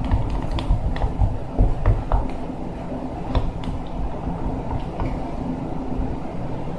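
Slime being stirred in a bowl: glue and detergent mixed by hand, giving scattered short clicks and squelches over a steady low background hum.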